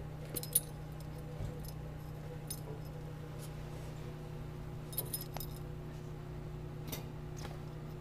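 Dog's metal collar tags jingling faintly in a few short clusters of clinks as the dog moves, over a steady low hum.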